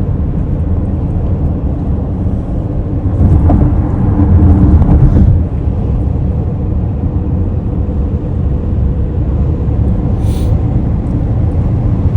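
Road noise inside a moving car: a steady low rumble of engine and tyres that swells louder for about two seconds, a few seconds in.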